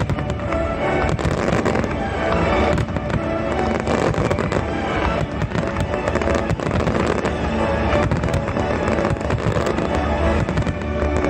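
Fireworks bursting and crackling in rapid, irregular bangs over loud music played with the display, as at a pyromusical show.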